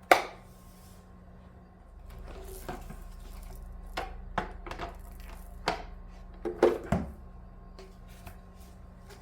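Vacuum cleaner parts and packaging being handled: a sharp knock at the start, then scattered clicks, taps and knocks, with a cluster of louder knocks about two-thirds of the way through.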